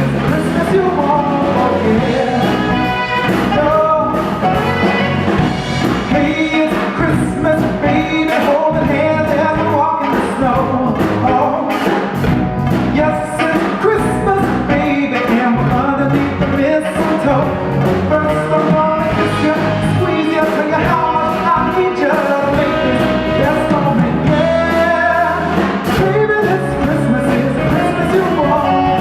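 Live band performing a Christmas song with a lead singer, the voice carrying the melody over a steady drum-kit beat and full band accompaniment.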